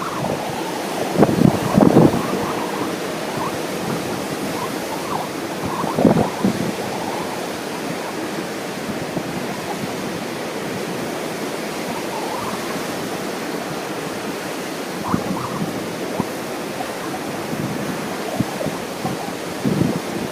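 Ocean surf washing steadily on the beach, with wind buffeting the microphone in a few short gusts: near the start, about six seconds in, around fifteen seconds and near the end.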